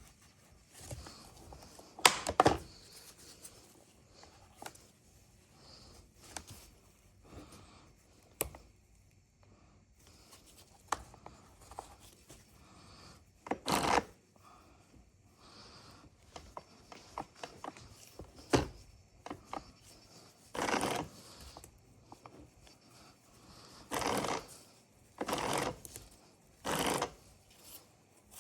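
Clicks, knocks and rubbing of tools and parts being handled while a chainsaw is worked on. Near the end come four short rasping bursts of about half a second each.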